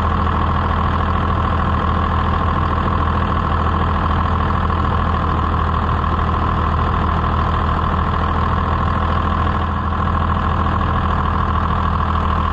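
1994 Dodge Ram 2500's 5.9-litre Cummins inline-six turbodiesel idling steadily, heard from the open engine bay, with a steady high whine over the engine note.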